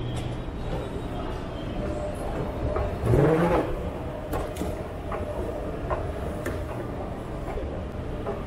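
Steady low mechanical rumble of a running escalator and the terminal hall, with a few faint clicks. About three seconds in there is a brief, louder sound that rises in pitch.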